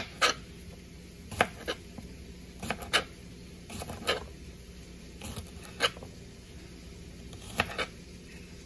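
Knife knocking against a plastic cutting board while slicing cucumber: about a dozen sharp single knocks at irregular intervals, over a steady low hum.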